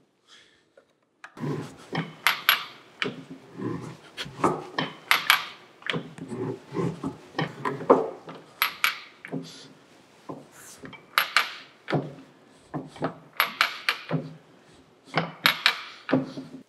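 5/16 inch keyway broach being pressed down through a pulley's 1 3/8 inch bore, its teeth cutting the keyway deeper on a pass with a shim behind it. It makes a long run of irregular scraping clicks, starting about a second in.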